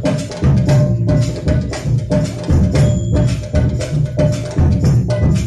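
Live percussion ensemble playing a fast rhythm of drum strokes, with deep drum beats under sharper clicking hits.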